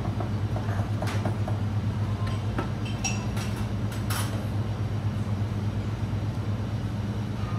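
Steady low drone of a commercial kitchen exhaust hood, with a few light clinks and knocks of knives and utensils on a steel counter and cutting boards. The sharpest clinks come about a second in and about four seconds in.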